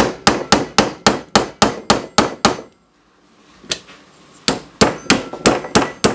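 Quick, even taps of a small hammer on a pin punch, about four a second, driving a pin out of a Smith & Wesson M&P 10mm pistol frame. The tapping stops for nearly two seconds midway, then starts again.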